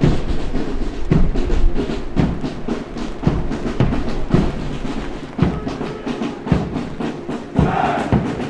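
Column of soldiers marching in step on pavement: boots strike in a steady cadence, with a heavy footfall about every second and lighter ones between. Near the end, massed men's voices start up in unison.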